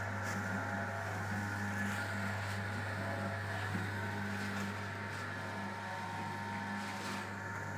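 Electric soap-noodle mixer machine running with a steady motor hum.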